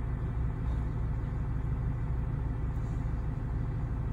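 A steady, low mechanical hum that keeps the same level throughout, with no knocks or changes.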